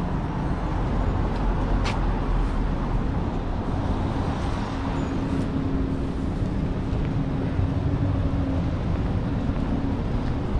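Road traffic: a steady low rumble with a vehicle engine humming at one pitch, fading out near the end, and a single sharp click about two seconds in.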